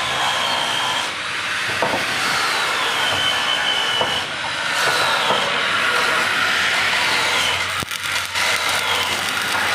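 Angle grinder cutting and grinding steel: a continuous loud grinding noise, its motor whine sagging and recovering in pitch several times as it bites into the metal.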